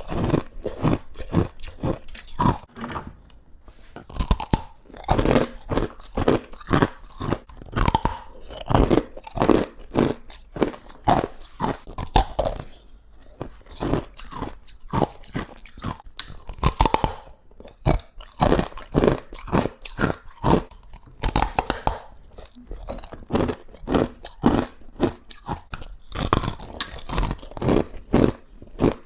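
Ice being bitten and crunched between teeth close to the microphone: a steady run of sharp cracking crunches, about two or three a second, with brief pauses.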